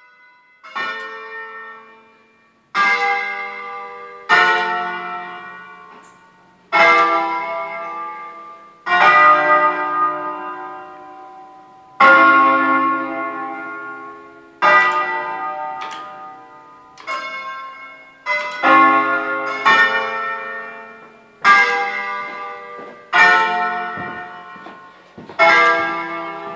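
A ring of eight church bells in D-flat, cast by L. D'Adda in 1954, rung by hand as a solemn concerto and heard from inside the sacristy. It is an irregular run of strokes and chords, one every one to two seconds, each ringing out and slowly dying away.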